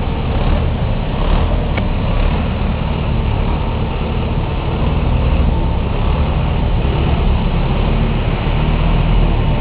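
Steady, loud engine noise on an airport apron beside a parked KDC-10 tanker jet, with a deep rumble underneath and no break or change in level.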